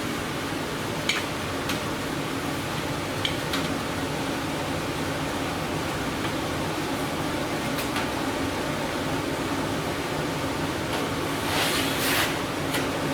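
Steady mechanical hum of shop background noise, with a few light clicks and a short scraping rustle about eleven seconds in.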